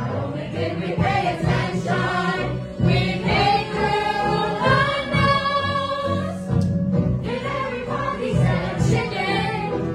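A group of voices singing a show tune together over instrumental accompaniment.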